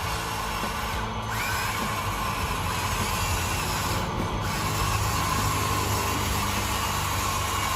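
Small electric motor and plastic gearbox of an RC construction model whirring with a slightly wavering whine, over background music.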